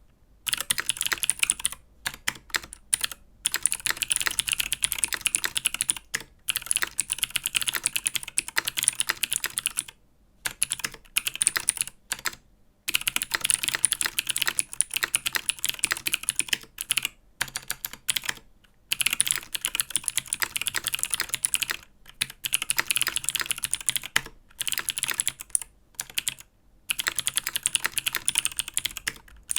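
Typing on a mechanical keyboard fitted with Helix Skylar clicky switches: fast runs of sharp clicks, broken by short pauses every few seconds.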